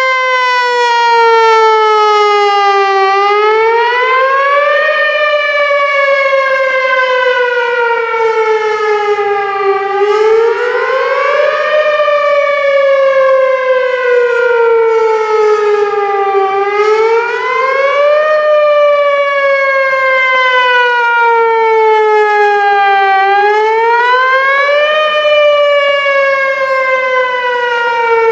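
Whelen Vortex R4 outdoor tornado siren sounding a wail during a test. The pitch rises over about two seconds and falls over four or five, in a cycle that repeats about every six and a half seconds.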